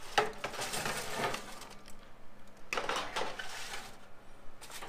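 Foil-lined metal baking sheet scraping on an oven rack as it is turned around, with the aluminium foil crinkling. The sound comes in three spells, the first opening with a sharp knock.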